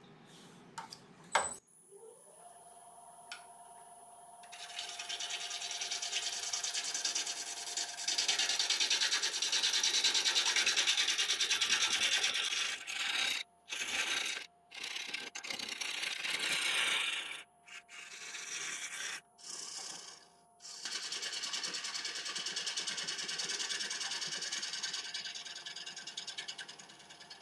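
Wood lathe switched on, its motor whine rising and settling as it spins up, then a turning tool cutting into the spinning laburnum in long passes broken by several short pauses. The cuts are taking away soft, punky wood to reach solid wood.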